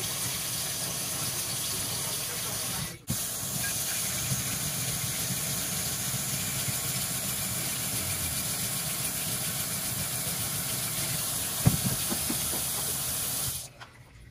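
Tap water running steadily from a faucet into a sink and over small metal block plane parts being rinsed under it, with a brief break about three seconds in and a short knock near the end. The flow stops suddenly just before the end as the tap is shut off.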